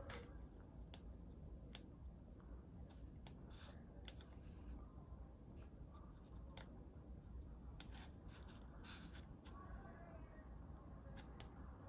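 Faint handling noise from hands shifting a bundle of jumper wires and a plastic-bodied electronics prototype: scattered light clicks and short rustles over a low room hum.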